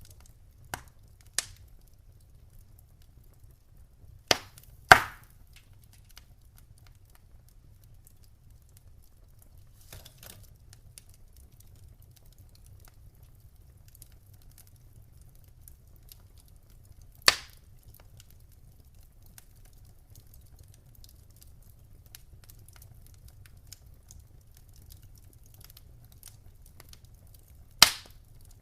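Wood fire burning in a fireplace. Sharp, loud pops from the burning logs come several seconds apart, the loudest about five seconds in and near the end, over faint soft crackling and a low steady rumble.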